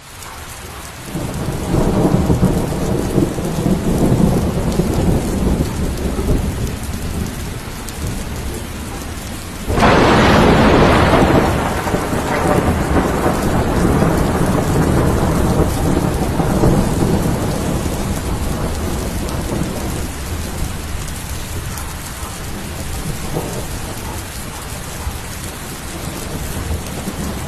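A waterfall rushing: a steady, loud wash of falling water with a deep rumble beneath it. It grows suddenly louder and brighter about ten seconds in, then eases back to a steady rush.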